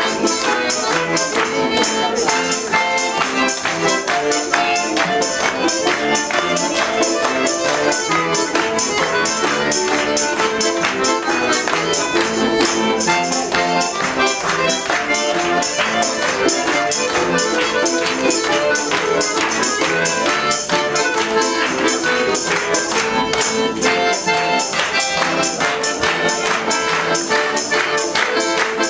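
Lively music with a fast, steady tambourine beat over sustained instrument tones.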